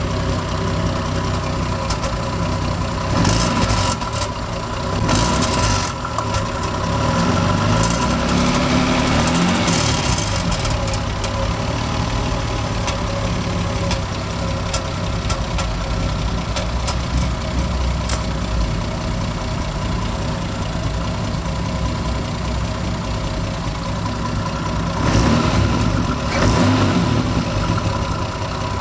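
Turbocharged vehicle engine idling and revved in short bursts in the first ten seconds and again near the end, with a steady whine from a turbocharger the owner calls bad.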